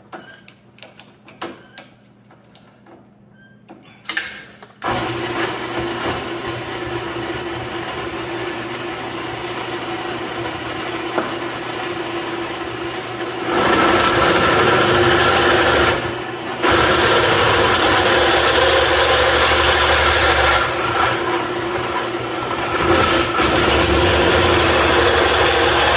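Drill press motor starting about five seconds in and running steadily. It gets louder about halfway through as the bit cuts through the steel log-stop parts, with a brief dip shortly after.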